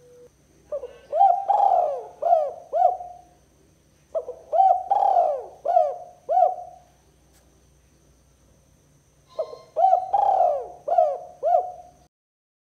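Spotted dove (tekukur) cooing: three phrases of about five rising-and-falling coos each, a couple of seconds apart. This is the territorial call used as a lure for rival spotted doves.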